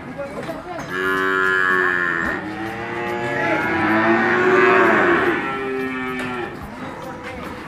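Cattle mooing: two long, drawn-out moos, the first starting about a second in and the second louder, peaking around four to five seconds before fading out.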